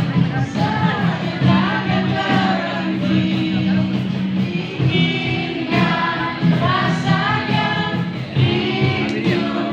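Music with singing: sung melody phrases over sustained low accompanying notes, possibly several voices together.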